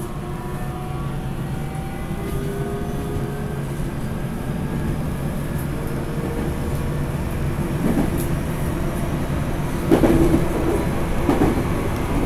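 373 series electric multiple unit running, heard from inside the car's end vestibule: a steady rumble of wheels on rail with a motor whine at several pitches over the first few seconds. The noise grows a little louder from about eight seconds in, with a few knocks from the rail joints.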